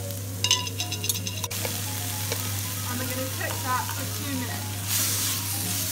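Aubergine cubes, garlic and basil stalks sizzling in oil in a frying pan and being stirred with a wooden spatula. A metal spoon clinks a few times in the first second or so as capers are spooned in, and the sizzle grows louder near the end.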